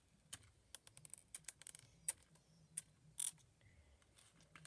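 Bead-filled slime being kneaded and squeezed by hand: irregular sharp clicks and pops, with one slightly longer crackle a little past the middle.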